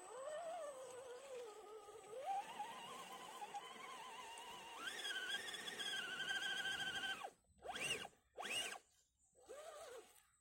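Brushed 540 electric motor and gear drivetrain of an RGT EX86100 V2 1:10 rock crawler whining as it crawls up a loose dirt slope. The pitch wavers with the load and steps up about halfway, then the whine cuts off. Three short throttle blips follow near the end, each rising and falling.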